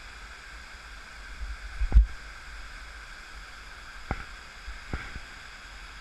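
Water rushing steadily down a dam's stepped concrete spillway. A loud thump about two seconds in, and two lighter knocks later.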